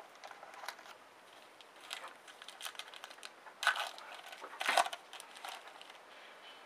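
Foil trading-card pack wrappers and cards being handled: a run of small crackles and rustles, with two louder crinkles around the middle.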